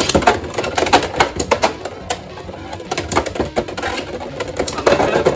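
Two Beyblade X spinning tops, Shark Edge 5-60GF Metal Coat: Blue and Cobalt Drake, spinning and clashing in the plastic Xtreme Stadium. They give a rapid run of sharp clicks and clattering hits, loudest in the first second or so.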